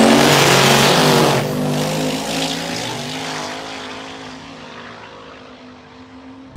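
Two drag-racing cars launching side by side at full throttle, engines running hard with a rising note, then the sound fades steadily as they pull away down the strip.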